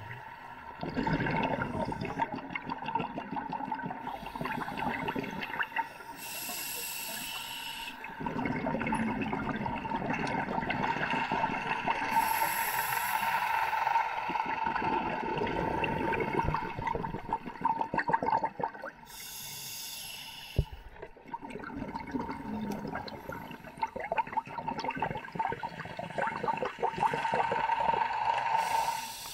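Scuba diver breathing through a regulator underwater: three hissing inhalations, each followed by a few seconds of bubbling exhalation.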